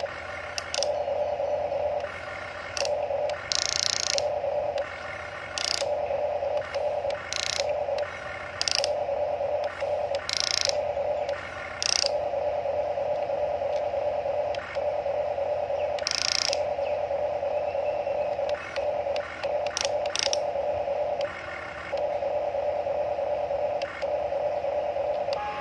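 Huina radio-controlled toy excavator's electric gear motors whining in short runs, stopping and starting every second or two as the boom and arm are worked. Brief higher grinding clicks from the gearboxes come in now and then.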